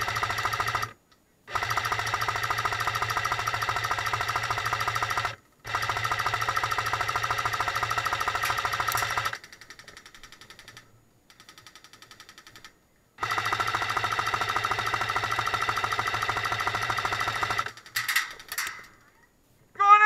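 Airsoft PKP support gun firing long full-auto bursts: a very fast, even rattle over a steady whine, in four runs of a few seconds each with short breaks and a longer lull midway.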